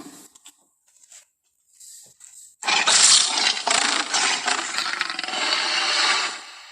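Tyrannosaurus rex roar sound effect: a loud, harsh, raspy roar starting a little over two and a half seconds in, lasting about four seconds and fading at the end. A few faint clicks come before it.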